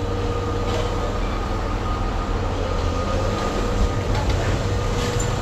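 Heavy scrapyard machinery running steadily: a continuous low engine rumble with a steady high whine over it, and a few faint metallic knocks.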